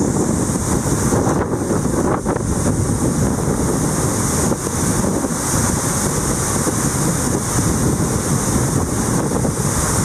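Steady rushing of the Western Julan waterfall as it plunges into its rock pool, with wind from the spray buffeting the microphone.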